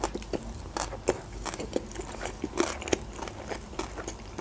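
A person chewing a mouthful of sushi roll with closed lips, making irregular soft clicks and crunches several times a second.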